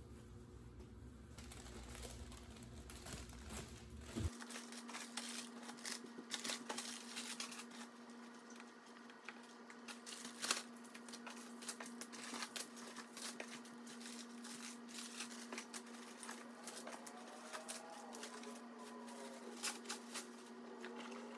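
Crinkling and rustling of plastic wrapping and the cardboard parcel box being handled during unpacking, with many small irregular clicks and taps. A faint steady hum comes in about four seconds in.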